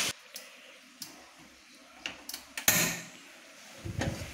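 Faint sizzling from chilli sauce in a wok, with a few sharp clicks and one louder knock about two and a half seconds in, then a dull thump near the end.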